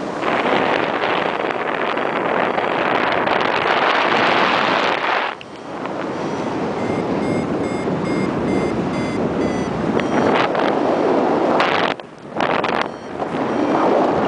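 Wind rushing over the microphone in paraglider flight, loud and gusting, dropping briefly about five seconds in and again near the twelfth second. From about seven to nine and a half seconds a run of short high electronic beeps, about three a second, of the kind a paragliding variometer gives when the wing is climbing.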